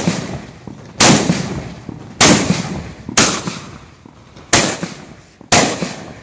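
Mascoli, small traditional Neapolitan gunpowder mortars set in a row on the ground, going off one after another: six sharp, loud blasts about a second apart, each trailing a short echo.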